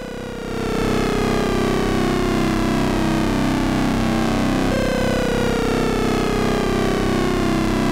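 Modular synthesizer drone: four Rossum Trident oscillators ring-modulated into one rich, buzzy tone, with a throbbing low end. The upper partials slide slowly downward as an oscillator's frequency is turned by hand, with a sudden step about five seconds in.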